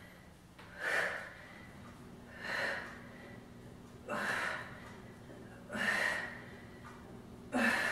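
A woman's sharp, noisy breaths, five in all, one about every second and a half, each timed to a rep of a side plank elbow-to-ground exercise.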